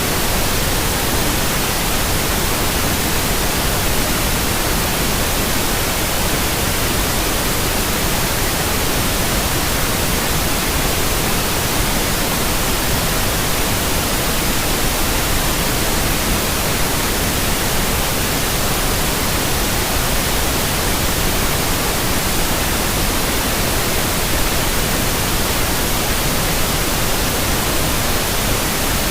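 Steady white noise for baby sleep: an even, constant hiss spread across all pitches, unchanging throughout.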